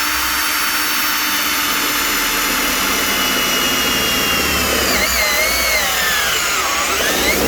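Electric drill running at speed, boring and enlarging bolt holes in a 2002 Trailblazer's rear door, drilled a little sloppy so the handle can be adjusted. Its steady whine dips and wavers in pitch from about five seconds in as the bit is worked around in the hole.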